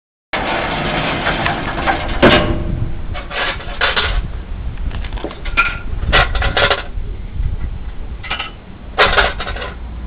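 Scrap tire compactor at work: a steady low hum with irregular metallic clanks and rattles.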